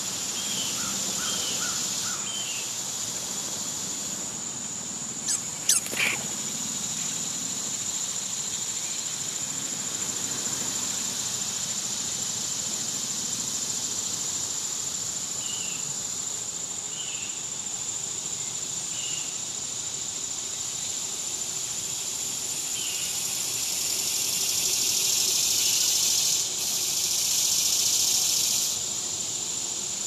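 Steady high-pitched insect chorus, the buzz swelling louder near the end, with scattered short bird chirps and a few sharp clicks about five to six seconds in.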